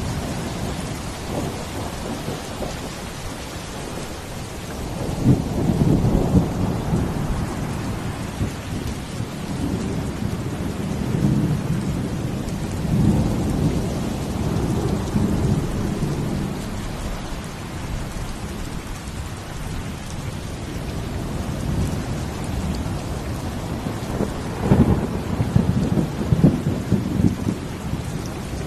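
Steady rain with deep, rumbling swells that rise and fall several times: strongest about five seconds in and again near the end.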